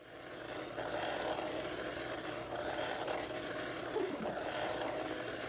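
A small battery-powered robot-bug cat toy buzzing steadily as its vibration motor drives it around inside a washbasin.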